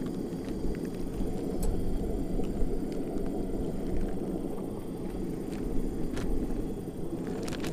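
Portable propane burner running under a pan of oil while it heats up: a steady low rushing noise, with a few faint clicks near the end.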